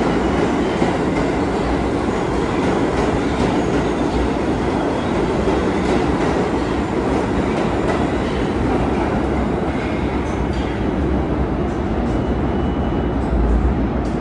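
R62A subway train running past on the rails: a steady loud rumble of wheels on track with rail-joint clatter and faint high wheel squeal.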